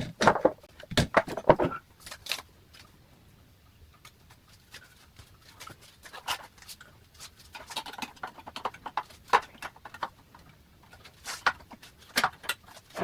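Clicks and knocks of a clothes drying rack's steel and plastic parts being handled and fitted during assembly. They come in quick irregular clusters, busiest in the first two seconds and again over the second half.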